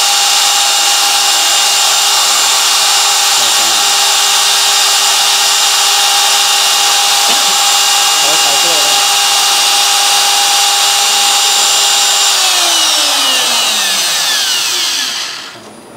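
CNC router spindle motor running at steady speed with a high whine and hiss. About three-quarters of the way through the whine slides down in pitch as the spindle is switched off and coasts down, and the sound dies away near the end.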